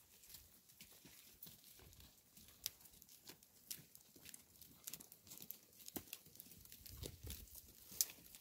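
A goat grazing close by: irregular crisp snaps and rustles of short grass being torn off by its mouth, with one sharper snap near the end.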